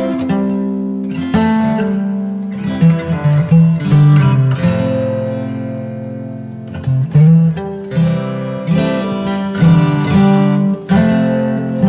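Background music: acoustic guitar playing plucked notes and chords.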